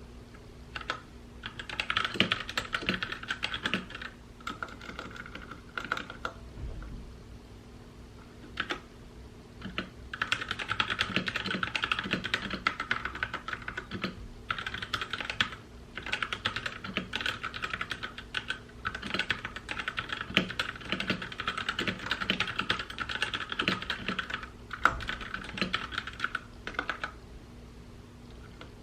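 Typing on a mechanical keyboard: fast runs of key clicks in bursts of several seconds, broken by short pauses.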